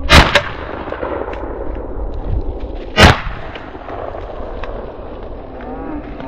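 Two shotgun blasts about three seconds apart. The first misses a running rabbit and the second, fired as it turns broadside, kills it.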